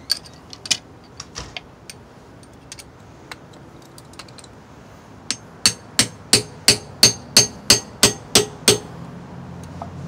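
Hammer driving a steel rod into a wax-packed crankshaft pilot bearing bore. After a few scattered knocks, about eleven quick, sharp metal strikes ring out, about three a second. Each blow uses the trapped wax as a hydraulic ram to push the pilot bearing out of the crankshaft.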